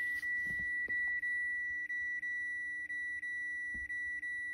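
A vehicle's electronic warning buzzer sounding a steady high-pitched tone with a slight pulse about three times a second, right after the ignition has been switched on. A few faint clicks sit under it.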